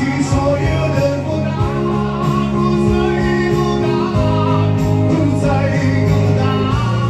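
Live male vocalist singing a slow song through a microphone with guitar accompaniment, a bar band's set.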